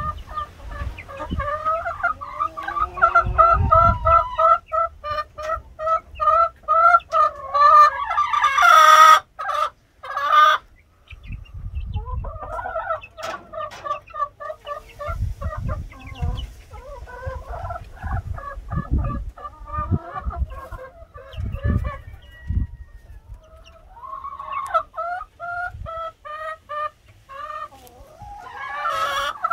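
Five-week-old chicks cheeping in quick runs of short, repeated peeps while they feed. The peeping stops for about a second around ten seconds in, just after two short noisy bursts.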